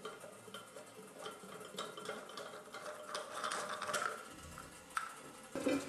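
Light clinks and scrapes of ceramic and plastic as the flush push-button is worked loose from a Jacob Delafon toilet cistern's ceramic lid, with a louder knock near the end.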